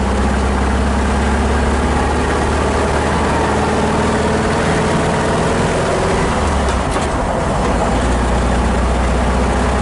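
1974 VW Thing's 1.6-litre air-cooled flat-four engine running steadily while the car drives down the road, heard from inside the cabin, with a brief dip in the low drone about two-thirds of the way through.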